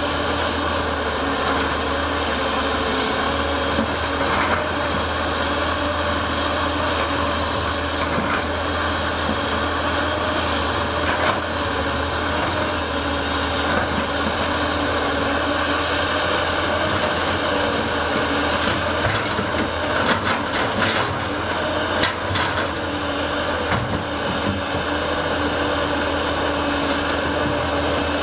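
Hydraulic excavator's diesel engine running steadily under digging load, with a few sharp knocks about twenty seconds in.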